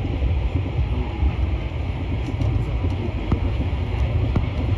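Interior sound of a Paris Métro MP14 rubber-tyred train running through a tunnel: a steady low rumble with a hiss above it and a few faint clicks.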